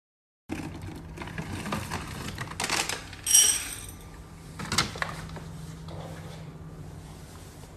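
Dry dog kibble poured from a plastic scoop into a ceramic bowl, rattling in a few short pours, with a bright ringing clink a little over three seconds in.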